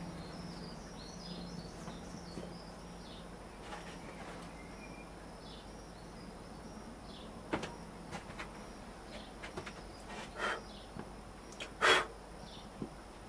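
Freshly poured silver sand-casting mold cooling on a firebrick as the binder burns off at the sprue: faint crackle with scattered sharp clicks and pops in the second half, the loudest a single pop near the end. A few faint bird chirps can be heard in the first few seconds over quiet room tone.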